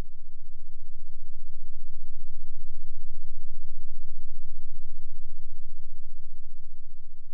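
A deep, rapidly pulsing synthesized bass drone that swells in and fades away, with a faint steady high-pitched whine above it.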